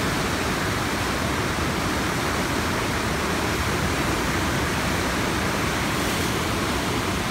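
Floodwater overtopping a river dam: a loud, steady rush of churning whitewater pouring over the dam at flood flow.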